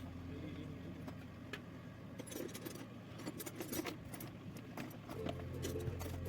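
Faint, scattered metallic clinks and jingling, like small metal objects being handled, densest in the middle, with music fading out at the start and coming back near the end.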